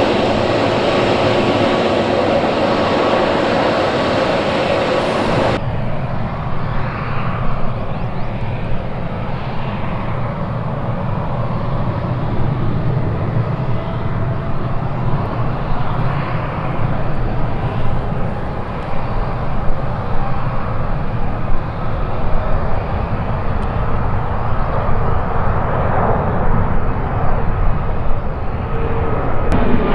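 Twin turbofan engines of an Airbus A321 airliner: a steady whine with hiss while it taxis. After a cut about five seconds in comes a deep, crackling rumble at takeoff thrust as the jet rolls, lifts off and climbs overhead.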